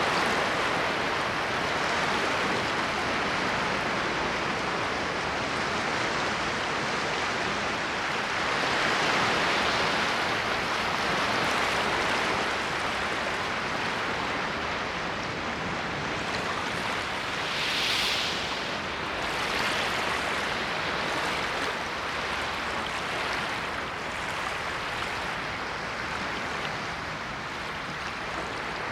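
Ocean waves washing onto the shore in a continuous hiss that swells and ebbs. One wave swells up about ten seconds in, and a sharper, brighter wash comes at about eighteen seconds.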